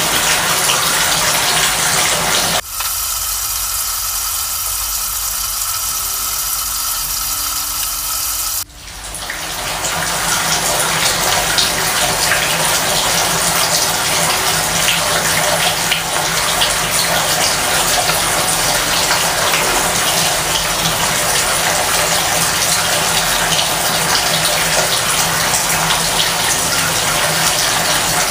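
Bathtub faucet running, a steady gush of water pouring into the tub. For about six seconds, a few seconds in, the sound goes thinner and slightly quieter, then comes back full.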